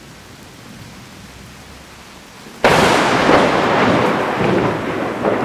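Rain falling with a low rumble, then, about two and a half seconds in, a sudden loud thunderclap that rolls on and slowly fades.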